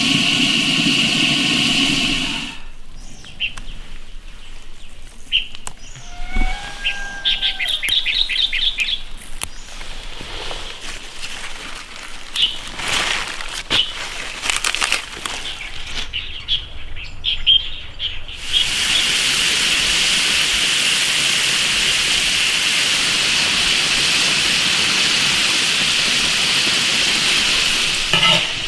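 A steady pitched hum for the first couple of seconds, then birds chirping among scattered rustles and clicks from lettuce being picked by hand. For the last ten seconds or so, a steady even hiss of food cooking in an iron wok, which stops shortly before the end.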